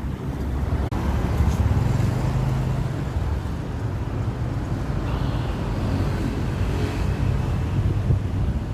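Motorbike engine running steadily, with road noise and wind on the microphone.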